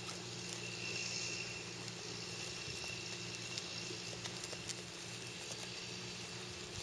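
Boer goats grazing close by: faint scattered ticks and rustles of grass being cropped and trodden, over a steady low hum and a faint high tone for a couple of seconds after about a second in.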